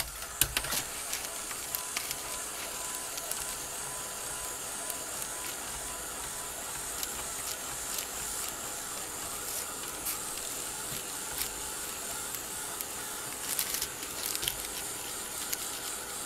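Handheld hot-air tool blowing with a steady hiss, drying a freshly applied coat of gesso on paper.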